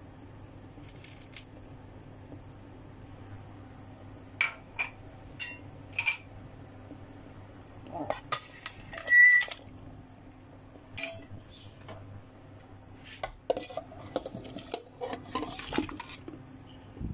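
Kitchenware clinking and knocking on a stainless steel pot as soup ingredients are tipped in and a glass lid is handled over it, with the loudest, ringing clink about nine seconds in. A steady low hum runs underneath.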